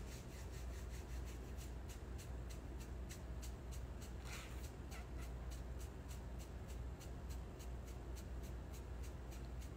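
Quiet room tone: a steady low hum with faint rustles, no speech.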